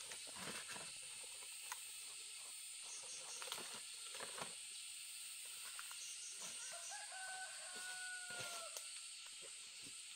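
A rooster crowing once, a single long call of about two seconds that rises in steps at the start, holds, and dips at the end, over faint scattered clicks and rustles.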